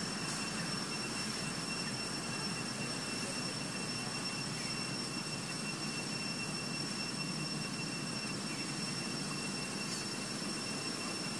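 Steady forest background: an even hiss with a few thin, high, steady tones over it, unchanging throughout.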